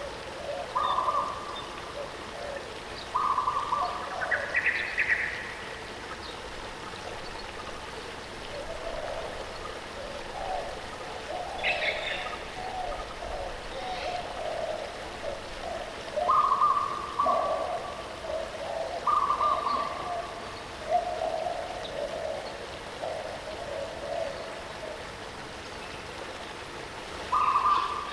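Waterfall running steadily, with birds calling over it: short level notes repeated every few seconds, a rising call about five seconds in, a brief high chirp near twelve seconds, and a run of lower notes through the middle.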